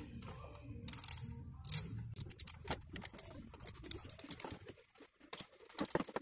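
Irregular light clicks and rattles from a hand loosening a clamp on a power steering hose and working the hose, over a low steady hum that stops about two-thirds of the way through.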